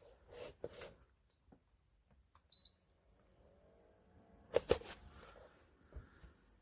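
Handling of the medisana AH 663 ultrasonic humidifier: light plastic clicks and knocks, a short electronic button beep about two and a half seconds in, and two sharp clicks close together a little later.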